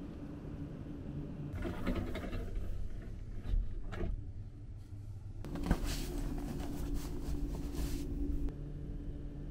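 Cotton bed sheet and pillow rustling under a hand that pats and rubs them, in two spells, about a second and a half in and again from about five and a half seconds, with a few light knocks between. A steady low hum runs underneath.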